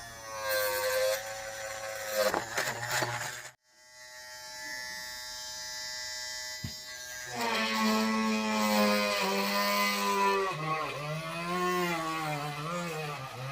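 Homemade mini drill built from a small DC motor whining as it runs. Its pitch bends and dips repeatedly as the motor is loaded and released. The sound cuts out abruptly about a third of the way in, then returns as a steady whine before wavering again.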